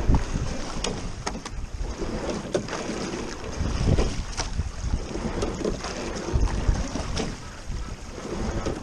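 A double sculling boat being rowed: wind rumbling on the microphone over the splash and rush of water, swelling with each stroke every few seconds, with scattered sharp clicks and knocks from the oars and their oarlocks.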